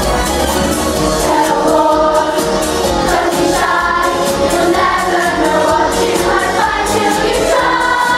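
Large youth choir of mixed voices singing in unison over backing music with a steady beat.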